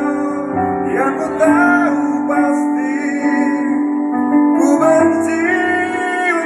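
Amplified live singing of a pop ballad: a man and women singing into microphones over an instrumental accompaniment with keyboard, the melody carried in long held notes.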